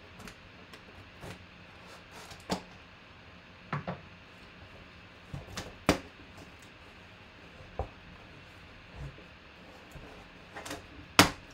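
Long cardboard bat box being handled: scattered knocks, taps and scrapes of cardboard, with a louder knock about a second before the end.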